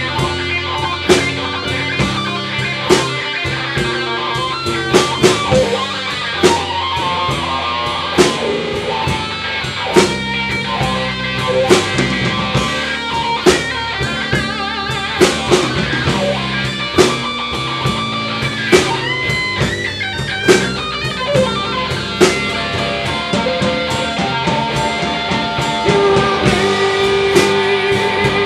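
Live band playing a slow blues: electric guitar and acoustic-electric guitar with a steady drum beat about once a second. Sustained guitar notes, some bent upward.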